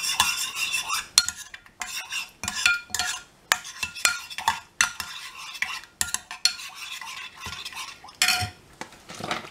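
Metal spoon stirring liquid sauce in a ceramic bowl: irregular strokes of scraping and clicking against the bowl's sides and bottom.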